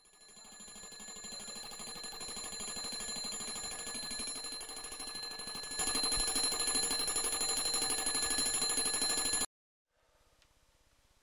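Mechanical twin-bell alarm clock ringing: a fast, steady rattle of the hammer on the metal bells. It fades in, gets louder about six seconds in, and stops abruptly near the end as it is switched off, leaving faint room sound with a few light clicks.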